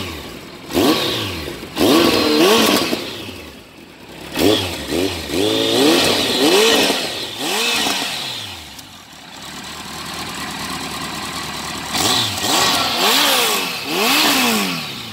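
Kawasaki ZX-14R inline-four engine revved in repeated throttle blips through an Akrapovic silencer on a stainless-steel exhaust line, its pitch rising and falling with each blip. It settles to a steady idle for a few seconds before more revs near the end.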